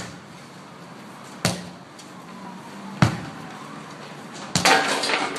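Sledgehammer striking a large rubber tractor tyre in a steady rhythm, four heavy thuds about a second and a half apart. A short rush of noise follows the last strike.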